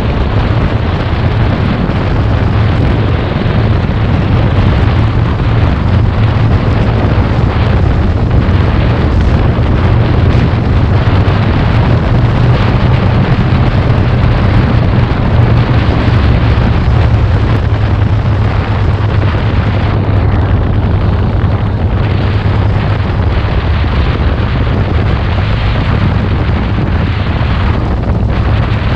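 Harley-Davidson Road King's V-twin engine running steadily at road speed, under heavy wind rush on the microphone.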